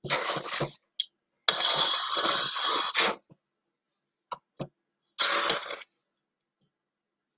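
Metal spoon stirring and scraping a very thick cake batter around a stainless steel mixing bowl, in three bursts of scraping, the middle one the longest at over a second, with a few short clicks of spoon against bowl and silence between.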